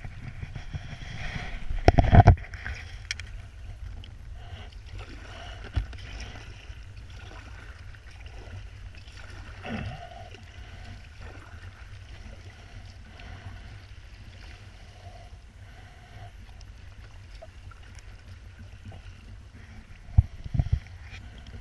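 Kayak being paddled through choppy water: paddle blades dipping and water swishing and splashing along the hull, over a steady low rumble. Two loud knocks stand out, about two seconds in and near the end.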